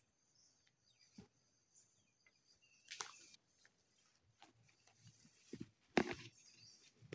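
Footsteps crunching through dry leaf litter and brush, with irregular crackles and snaps, the loudest about three seconds in and again about six seconds in. Insects buzz faintly in the first part.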